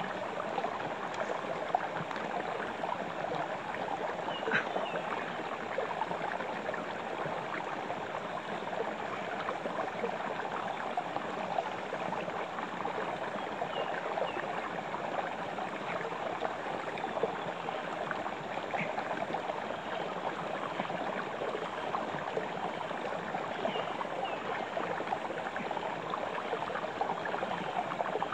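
Freshwater stream running, a steady rushing wash of water.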